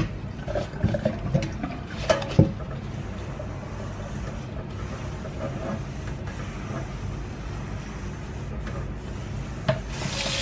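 A frying pan being washed in a stainless steel sink: a few knocks and clunks in the first couple of seconds, then the tap turned on near the end, water splashing onto the pan. A low steady hum runs underneath.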